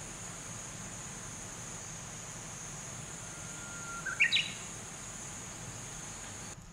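Outdoor ambience of insects chirping in a steady high-pitched drone, with a short rising bird call about four seconds in. The sound cuts off just before the end.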